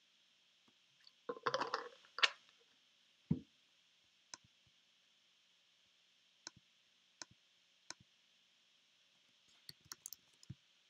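A few gulps of someone drinking, then a low knock, followed by a handful of separate mouse clicks and, near the end, a quick burst of keyboard typing on a laptop.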